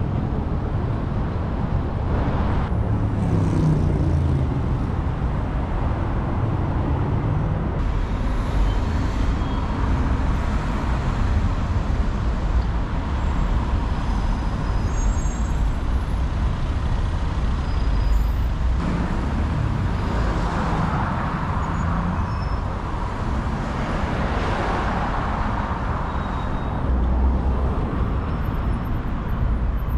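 City street traffic: motor vehicles running and passing with a steady low rumble, one passing more loudly about two-thirds of the way through.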